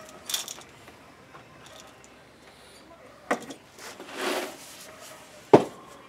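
Handling sounds of a foil coffee bag and metal containers on a workbench: a few brief rustles and clicks with quiet between, a half-second rustle a little past the middle, and one sharp knock near the end as something is set down.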